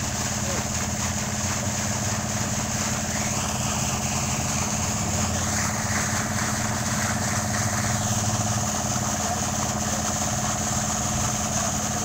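An engine running steadily, with the rush of muddy, sediment-laden water pouring out of a long discharge pipe while a clogged well is flushed out by siphoning.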